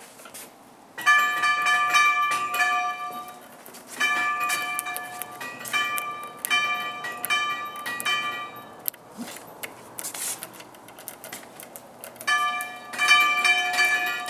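Doorbell chime rung over and over, sounding its bell-tone melody in three runs: about a second in, again at about four seconds, and once more near the end.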